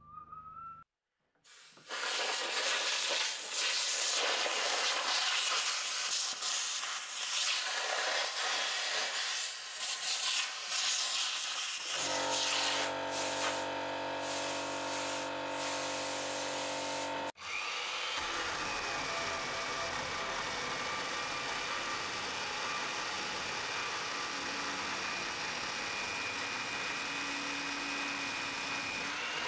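Workshop noise on timber: loud hissing, then a compressed-air blow gun hissing over the beam with a few steady tones in it. After a sudden cut, a power tool's electric motor runs steadily with a high whine.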